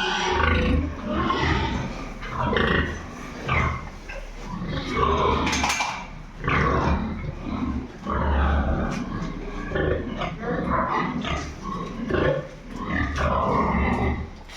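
Pigs grunting and calling, many short calls overlapping one after another.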